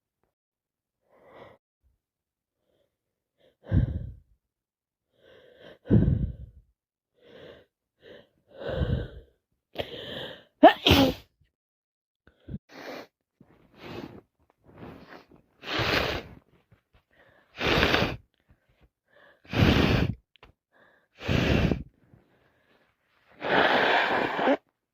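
A person sneezing again and again, about nine loud sneezes coming closer together in the second half, with short quieter breaths between them. It is a non-stop sneezing fit from a cold and allergies.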